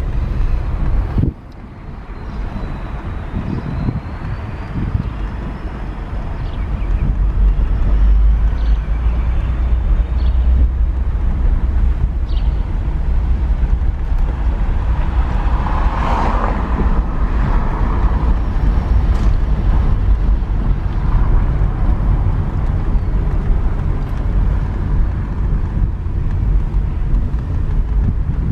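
A vehicle driving, with a steady low rumble of engine and road noise and wind on the microphone. The sound drops abruptly about a second in, then builds back up over the next few seconds.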